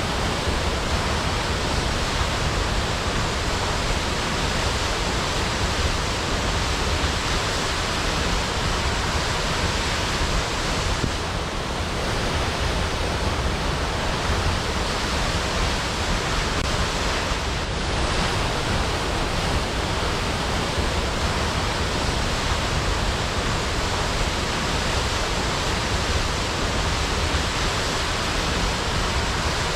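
Waterfall: falling water in a steady, unbroken rush.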